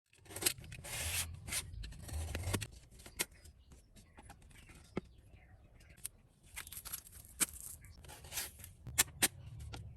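Small hard objects being handled at close range: a string of sharp clicks and taps mixed with short bursts of scraping and rustling, busiest in the first three seconds and again near the end.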